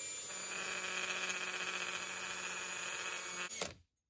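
Cordless drill running steadily, spinning the armature of a 1986 Honda Fourtrax 350 starter motor while a commutator cleaning stone is pressed against its burnt copper commutator bars to resurface them: a steady whine over a scraping noise. It stops suddenly about three and a half seconds in.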